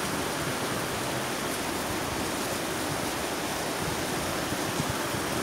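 Shallow rocky river flowing steadily over stones: an even rushing hiss of running water.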